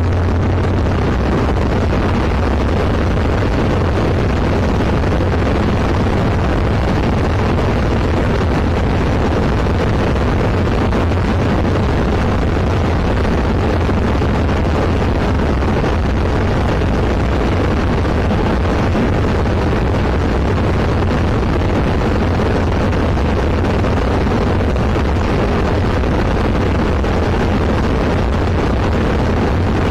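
Zenith CH701 light aircraft's engine and propeller running steadily in flight: a constant low drone with air rushing past the cockpit.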